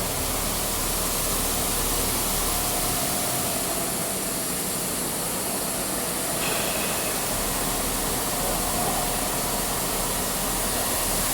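Diamond-wire multi-wire saw running as it slices sapphire wafers: a steady hiss, with a faint thin tone coming and going a few times.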